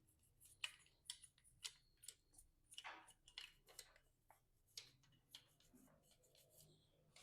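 Faint, scattered light clicks and taps, about a dozen over several seconds, from small parts being handled.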